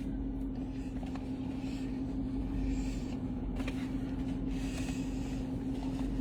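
Steady hum inside a stationary car's cabin, with one constant low tone over a low rumble, and a few faint clicks.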